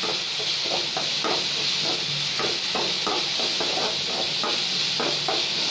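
Chopped onions and green chillies sizzling in hot oil in a metal kadai, with a steady hiss. A metal spoon scrapes and stirs them in quick strokes, about three a second, as the onions soften.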